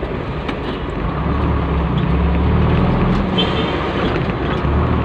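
Diesel vehicle's engine and road noise heard from inside the cab while driving, a steady low rumble.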